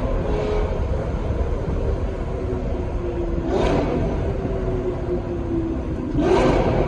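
Lamborghini Gallardo Superleggera V10 through an aftermarket F1-style exhaust, running with a deep rumble in a tunnel. It is blipped twice, about three and a half seconds in and again near the end, and the pitch sinks back after each rev.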